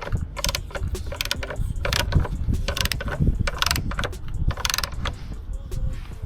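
Ratchet wrench clicking in short, repeated strokes, roughly two a second, thinning out after about five seconds, over low handling rumble.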